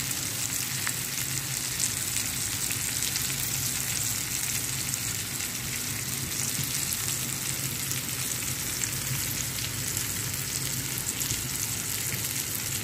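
Salmon pieces and onion frying in oil in a skillet: a steady sizzling hiss with fine crackling throughout, the fish being fried crisp.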